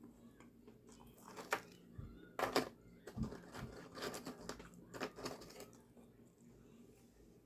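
Close-up eating of a toasted sub sandwich: an uneven run of crunches and mouth sounds as it is bitten and chewed, busiest in the middle and tailing off near the end.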